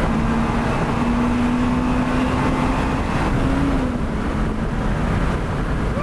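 Toyota Celica GT-S's 1.8-litre four-cylinder engine and road noise heard from inside the cabin at highway speed, a steady drone whose pitch rises slightly and then drops a little under four seconds in.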